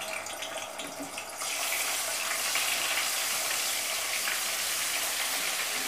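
Garlic-ginger paste frying in hot oil in a karahi. It crackles at first, then about a second and a half in becomes a louder, steady sizzle as the paste spreads through the oil.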